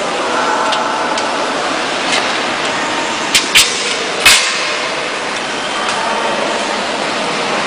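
Steady background noise with three sharp knocks: two close together about a third of the way in, then a louder one a moment later.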